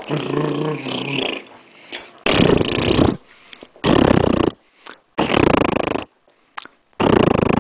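A person making loud noises with the mouth right at the microphone: a lower grumble at the start, then four noisy bursts of just under a second each, about a second and a half apart.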